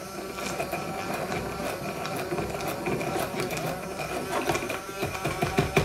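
Hand-held immersion blender running in a ceramic mug of coloured chocolate glaze with a steady whirr, mixing the dye in so that no lumps remain. A quick run of knocks comes in near the end.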